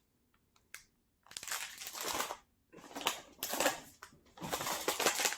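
Plastic snack packaging crinkling and rustling in several spells as the packets are handled, after about a second of near quiet with a few faint clicks.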